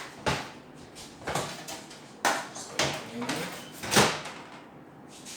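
Five or six sharp knocks and clicks, roughly one a second, of washing-machine parts being handled while a new timer is fitted; the loudest comes about four seconds in.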